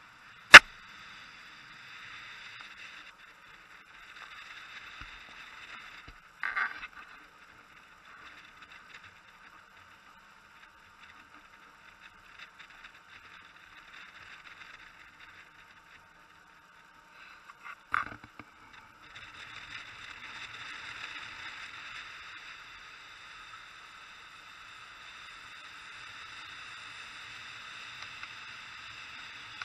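Steady noise of wind and sea heard on the open deck of a cargo ship under way, on a small camera's microphone. A single sharp, loud click comes about half a second in, and two shorter knocks come around six and eighteen seconds; the noise turns brighter and fuller from about nineteen seconds.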